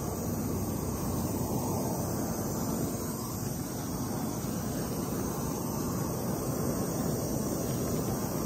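Handheld propane torch, its nozzle capped with a can to concentrate the heat, burning with a steady flame roar while it burns planting holes through woven weed-barrier fabric.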